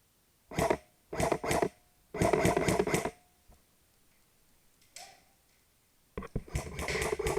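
Airsoft gun firing in short bursts of rapid shots: three brief bursts in the first couple of seconds, a longer burst of about a second, a faint shot a few seconds later, and another longer burst near the end.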